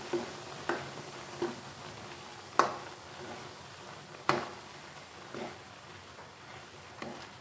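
A metal spatula knocking and scraping against a kadai while stirring gram flour into hot ghee, in irregular strokes, two of them louder, over a soft steady sizzle of the frying ghee.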